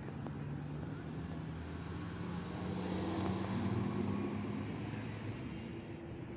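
A steady low engine drone with several held pitches, growing a little louder about three seconds in and then easing off.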